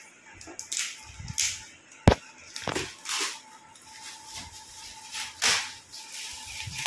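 Shiny metallic gift-wrap paper crinkling and tearing as it is pulled off a large present, in several short rustling bursts with one sharp snap about two seconds in.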